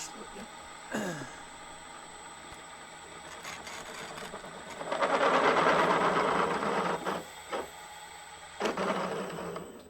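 Milling machine spindle running steadily while a large drill bit cuts into a mild steel bush. A loud grinding cutting noise swells about five seconds in and comes again briefly near the end.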